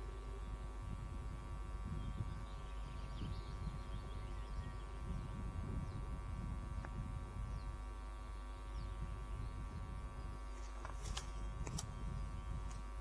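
Steady electrical hum and buzz from the nest camera's audio feed, over a low uneven rumble, with a few brief high chirps close together near the end.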